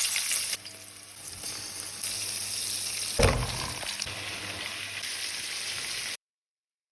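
Food sizzling as it fries in a hot pan, a steady hiss with a single knock about three seconds in. The sound cuts out abruptly a little after six seconds.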